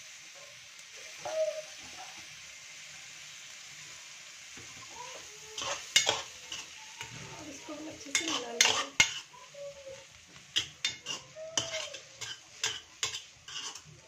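Poha sizzling softly in a kadhai of fried masala, then a steel spoon stirring and tossing it. The spoon clacks and scrapes against the pan, about twice a second near the end.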